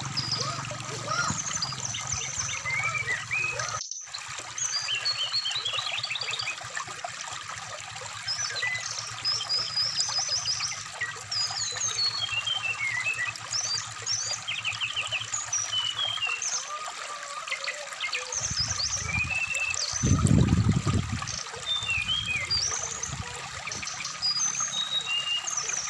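Brown-chested jungle flycatcher singing a steady string of short whistled notes, quick trills and rising and falling sweeps over trickling stream water. There is a brief break about four seconds in, and a couple of low rumbles about two-thirds of the way through are the loudest sounds.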